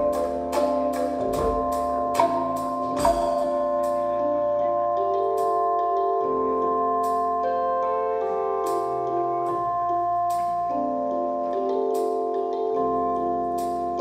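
Live ensemble music. Struck tuned percussion notes come about three a second for the first three seconds, then give way to sustained keyboard chords that change every couple of seconds, with a few sparse high percussion taps.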